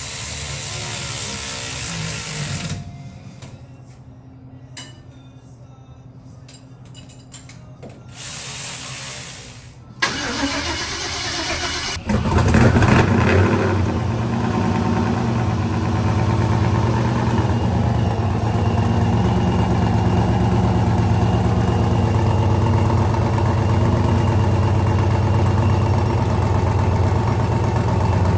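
Supercharged 6.0-litre V8 of a lifted mega truck starting about twelve seconds in, flaring briefly, then settling into a steady idle. Two spells of hissing come before it.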